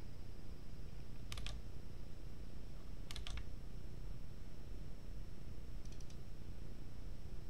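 Computer keyboard keys clicking in three short clusters of two to four keystrokes, the last one fainter, over a steady low hum and a faint high electronic whine.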